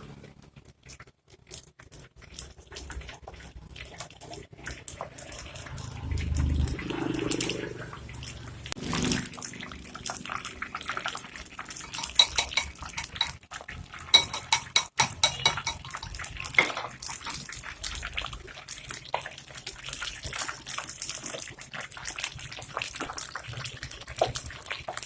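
Taro slices sandwiched with minced pork sizzling as they deep-fry in hot oil: a steady, dense crackle with occasional clinks of a utensil against the pan.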